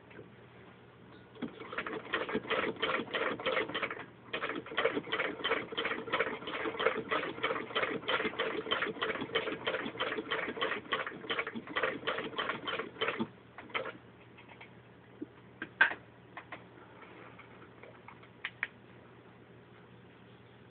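Antique Davis Advance B treadle sewing machine head, turned by hand and stitching through six layers of denim: an even run of mechanical clicks, about four or five a second, with a brief break about four seconds in. The stitching stops about two-thirds of the way through, leaving a few scattered clicks.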